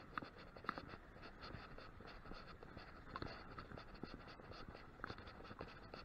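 Spinning reel being cranked to bring in line: faint, irregular clicking and scratching from the handle and gears.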